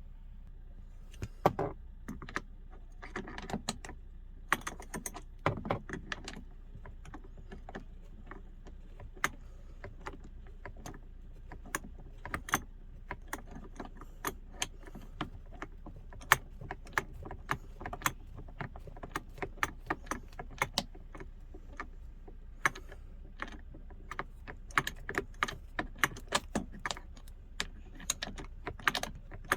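Irregular sharp metallic clicks and clinks from hand tools and bolts being handled, with a couple of duller knocks in the first few seconds.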